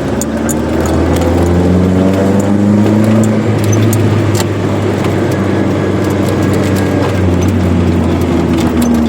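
Chevrolet Corsa with a sport exhaust on the move, its engine pitch climbing over the first few seconds, then holding at a steady cruise and easing off near the end. Scattered light clicks and rattles sound over the engine.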